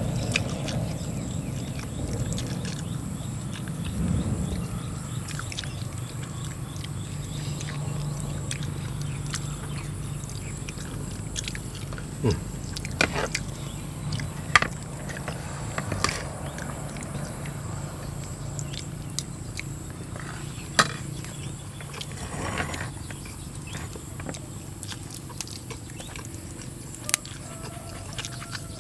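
Close-up eating sounds: chewing on stir-fried eel with rice, with scattered sharp clicks and crunches over a low steady hum.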